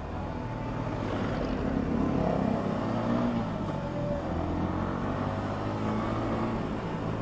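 Yamaha XSR155's single-cylinder engine running under way, its pitch rising and falling with the throttle, over a steady rush of wind and road noise. It gets louder about a second in.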